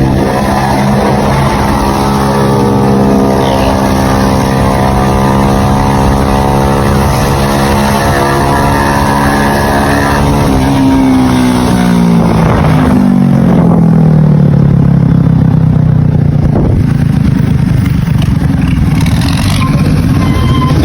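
Motorcycle engines running hard at high revs, the pitch held steady for about ten seconds, then falling over the next few seconds as the bikes slow, with wind noise from riding.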